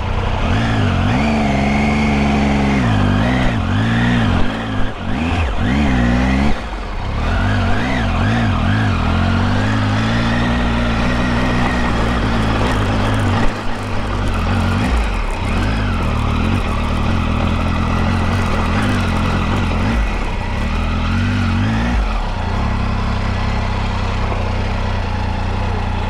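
Triumph Tiger 800's three-cylinder engine under way on a rough dirt track, its pitch rising and falling with the throttle for the first several seconds, then running steadier. About 22 seconds in it drops to a low, steady idle as the bike comes to a stop.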